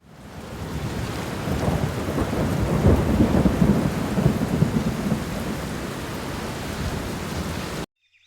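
Heavy rain with a roll of thunder, the thunder's rumble heaviest from about a second and a half in to halfway through. The rain fades in at the start and cuts off abruptly just before the end.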